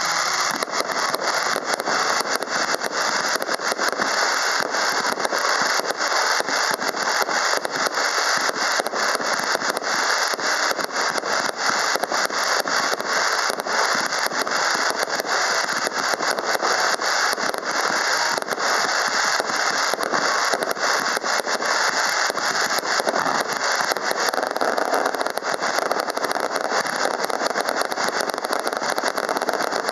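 Fireworks display firing continuously: a dense, unbroken stream of bangs, pops and crackles, many reports a second, with no pause.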